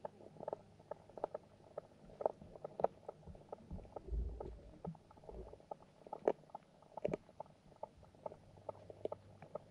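Underwater sound in a carp and goldfish pond: irregular sharp clicks and pops over a steady low hum, with a muffled low rumble about four seconds in.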